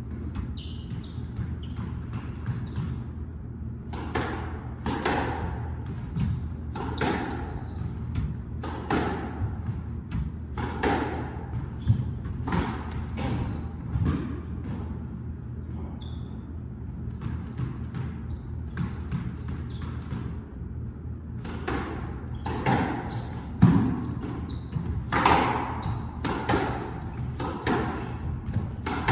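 Squash rally: the ball cracking off rackets and the walls about once every second or two, the hits coming in two runs with a sparser spell about halfway through, over a steady low hum.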